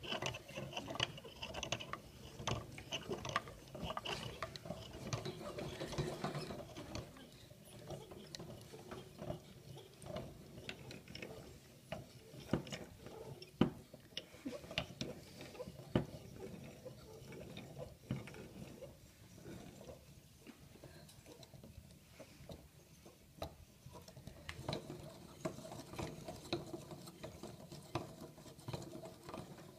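Hand-cranked wooden cam toys being turned: wooden cams, followers and axles clicking and knocking in an uneven clatter, with a few sharper knocks.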